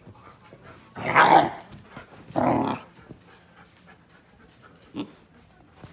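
A dog making two short, loud vocal sounds about a second and a half apart, with quieter panting and small clicks after.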